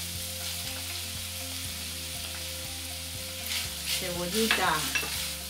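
Ground beef and freshly added chopped onion sizzling steadily in hot olive oil in a frying pan, being stirred with a wooden spoon.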